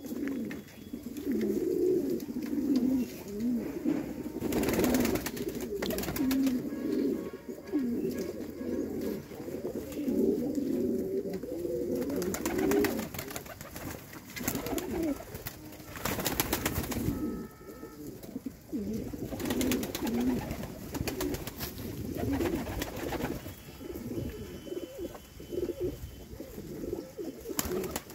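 A flock of domestic fancy pigeons cooing continuously in overlapping low warbles, broken several times by brief loud rustling bursts.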